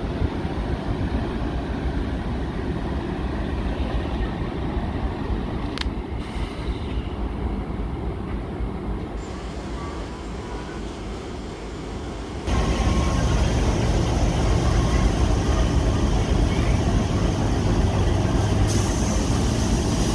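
Diesel freight locomotive running as it approaches slowly through the station, beside an electric passenger train standing at the platform. The rumble jumps abruptly louder about twelve seconds in.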